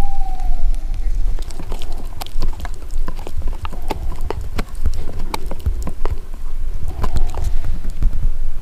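Dog chewing and gnawing on something hard: a run of sharp, irregular cracks and clicks from its teeth, over a low rumble.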